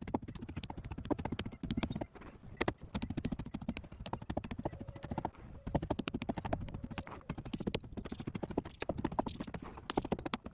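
Meat tenderizer hammer pounding cleaned conch meat: quick repeated knocks, several a second, in runs with brief pauses, to soften the tough muscle.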